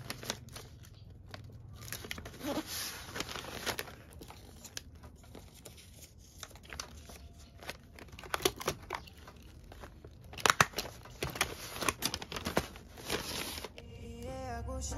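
Kraft-paper mailer and sticker backing handled by hand: paper crinkling and rustling, a sticker being peeled and torn off, and scattered sharp clicks and taps. Music with singing starts near the end.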